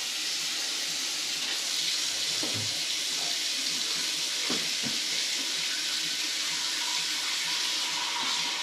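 Steady hiss of water running from a kitchen tap into a sink, with a few faint knocks in the middle.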